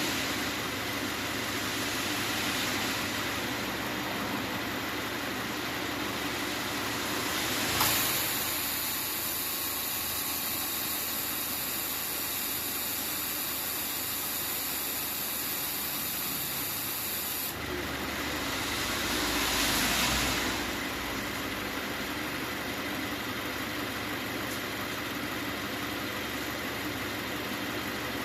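Subaru Forester 2.0T's turbocharged flat-four engine idling. About eight seconds in, a high hissing whine starts suddenly, runs for about ten seconds and then cuts off.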